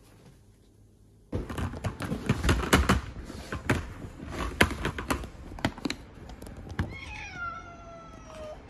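After a quiet second, knocking and scraping in a plastic pet carrier start suddenly and go on for several seconds. Then a cat in the carrier gives one long meow that falls in pitch.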